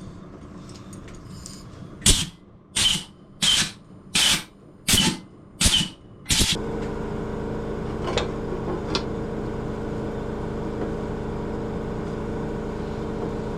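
Compressed-air blow gun let off in about six short, sharp blasts of hissing air. Just after the last blast an air compressor's motor cuts in and runs with a steady hum.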